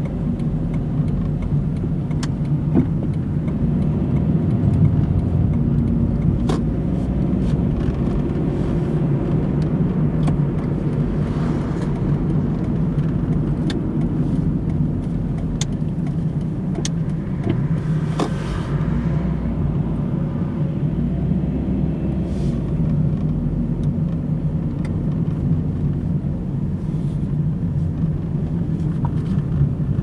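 Car driving on town roads, heard from inside the cabin: a steady low rumble of engine and road noise, with scattered light clicks and a brief swell of higher noise a little past the middle.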